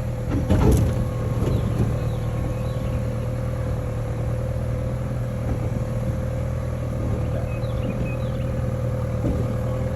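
Steady low engine hum with a constant thin whine, like a vehicle running, and a couple of brief knocks about half a second in.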